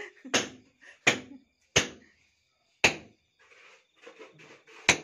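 Hammer blows on brick and mortar: five sharp strikes, roughly one a second, the gap before the last one longer.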